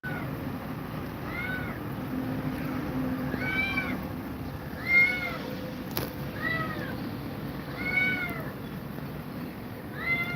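A cat meowing repeatedly: about six short, high-pitched meows, each rising and falling, roughly one every second and a half.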